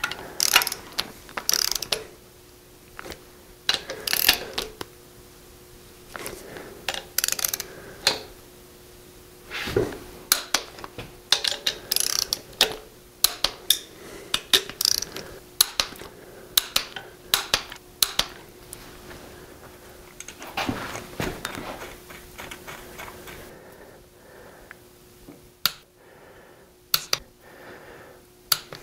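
A socket ratchet clicking in short, irregular runs as fasteners on top of a diesel engine's cylinder head are run down and torqued.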